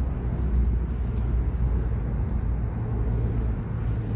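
Steady low outdoor background rumble, with a faint steady hum in the second half.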